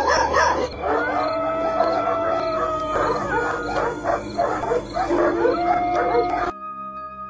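A dog barking and howling in a loud, agitated run of short calls and long held howls, cutting off suddenly near the end.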